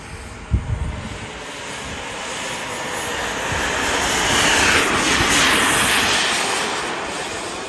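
Remote-controlled model jet fighter flying past: its jet whoosh swells to its loudest about five seconds in, then fades as it moves away. A brief low thump comes about half a second in.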